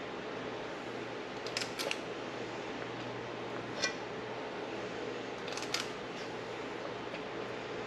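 Metal spring-loaded cookie scoop clicking as thick chocolate-oat no-bake cookie mixture is scooped and released, in a few short clusters about two, four and six seconds in. A steady low hum runs underneath.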